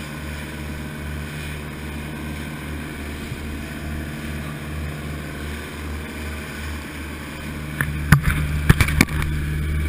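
Motorboat engine running steadily at speed, a constant low drone under the rush of the wake. About eight seconds in comes a quick cluster of sharp knocks, and after it the engine is louder.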